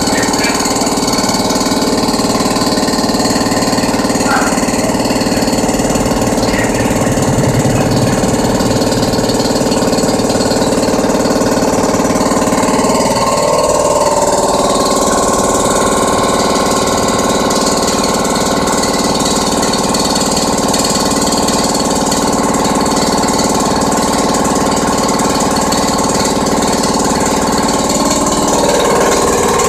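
Anest Iwata Crown 2 hp reciprocating air compressor running steadily, its electric motor driving the belt-driven piston pump that fills the 160-litre tank.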